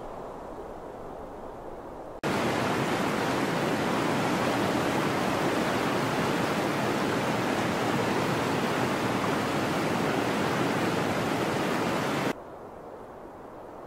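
Waterfall rushing: a steady, loud hiss of falling water that starts abruptly about two seconds in and cuts off suddenly near the end, leaving a fainter low hush.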